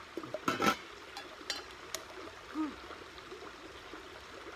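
Metal camp pots and bowls clinking and knocking a few times, the loudest about half a second in, over a steady rush of running water.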